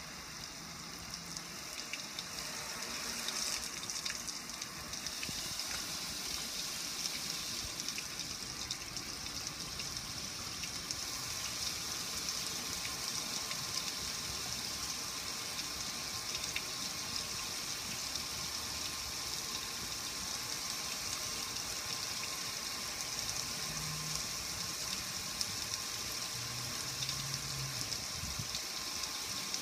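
Water showering onto a metal gas grill and splashing as it runs off the lid and front panel in a steady hiss. It builds over the first few seconds, then holds even.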